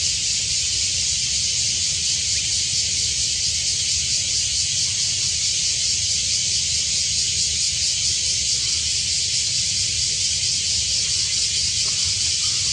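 A steady, high-pitched hiss with a fine rapid pulse, unchanging throughout, over a low rumble.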